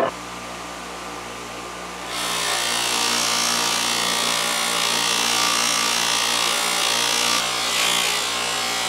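A motor-driven buffing wheel running with a steady hum; about two seconds in, the brass latch case is pressed against the wheel and a louder, steady rubbing hiss joins the hum as the brass is polished.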